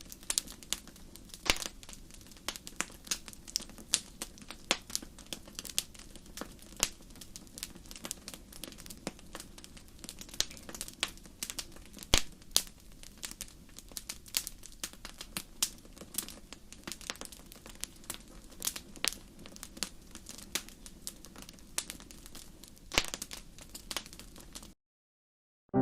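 Wood fire crackling: frequent sharp, irregular pops and snaps over a low steady rumble. It cuts off abruptly shortly before the end.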